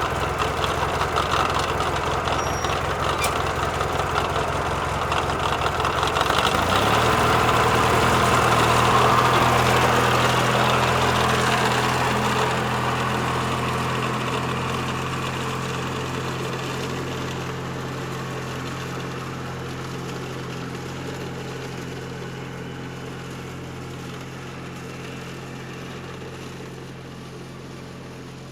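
Lawn mower engine running, speeding up to a higher steady pitch about six seconds in, then growing gradually fainter.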